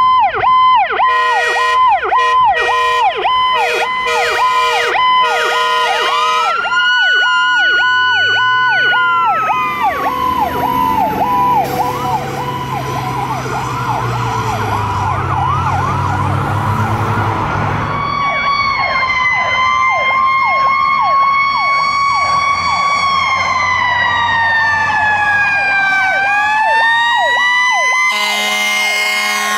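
Responding fire apparatus sirens. A fast electronic yelp is punctuated by repeated horn blasts for the first several seconds. Then a second siren winds up and slowly falls away over a low engine rumble, followed by slow rising and falling wails and another horn blast near the end.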